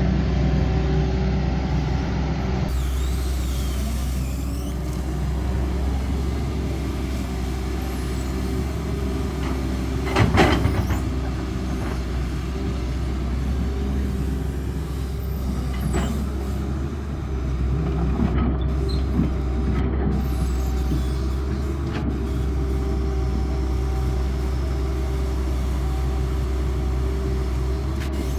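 Diesel engine of a CAT 320D excavator running steadily under work, with a loud clank about ten seconds in and a few lighter knocks later on.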